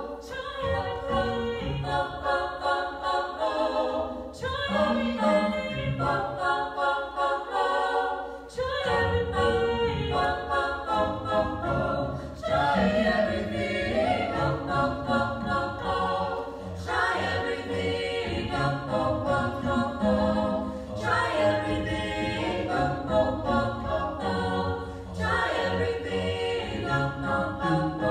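Small a cappella vocal ensemble of six mixed voices singing a pop-song arrangement in close harmony. The low voices drop in and out during the first few seconds, then hold steadily from about nine seconds in.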